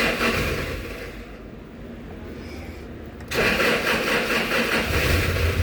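Toyota Hilux starter motor cranking the engine, which does not fire. It cranks, stops about a second in, then cranks again about three seconds in. This is a crank-but-no-start fault that the mechanic traces to a burnt ECM.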